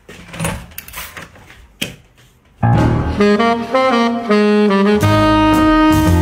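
Fairly quiet for the first couple of seconds, with a few faint sounds and one sharp click. Then, about two and a half seconds in, loud background music starts: a jazzy tune led by a saxophone playing held notes.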